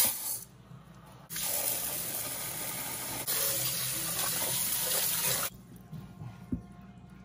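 Kitchen tap running into a pot of rice in a stainless steel sink while the sushi rice is rinsed by hand, for about four seconds starting just over a second in. A short rush of dry rice pouring into the pot opens it, and the water sounds drop away near the end.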